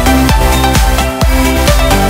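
Electronic dance music with a steady beat and a strong bass line.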